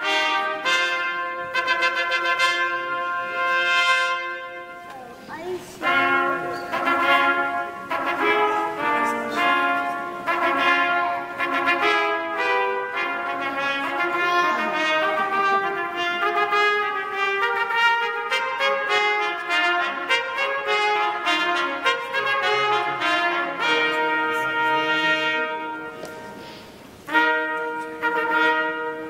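Trumpets and other brass playing a stately piece in harmony, with held notes and short pauses about five seconds in and near the end.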